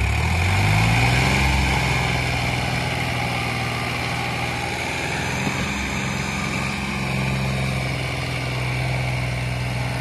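Tractor diesel engine revving up about a second in, then pulling steadily while towing a fully loaded straw-bale trailer, heavy enough that the tractor's front wheels lift off the ground.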